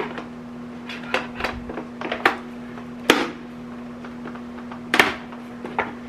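Sharp plastic clicks and knocks, about half a dozen spaced out, as the parts and round top cover of a robot vacuum are handled and fitted during assembly.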